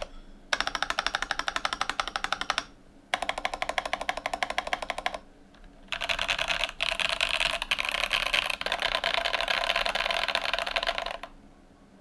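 Typing on a custom mechanical keyboard with lubed LOGA Chathai switches, an FR4 plate and SA-profile keycaps. There are two short runs of rapid key clicks, then a longer, denser run that stops near the end.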